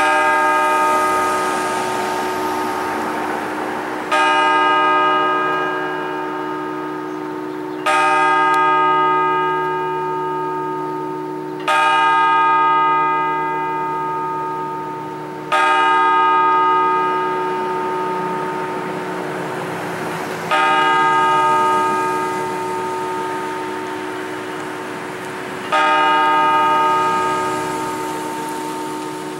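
A clock tower's single bell striking the hour for nine o'clock: seven strokes about four to five seconds apart, each ringing on and fading into the next.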